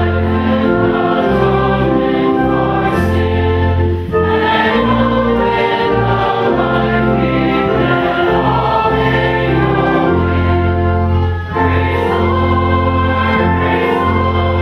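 Background music: a choir singing slow, sustained chords over held low bass notes, the chords changing about every second.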